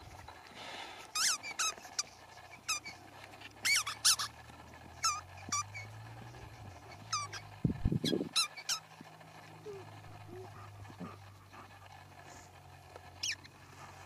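Squeaky ball squeaking in short, irregular squeaks, about a dozen, as a German Shepherd chews it, with a longer pause before a last squeak near the end.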